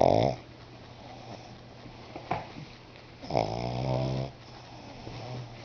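Pug snoring in its sleep: one snore trails off just after the start and a second, about a second long, comes around three seconds in, with quieter breathing between.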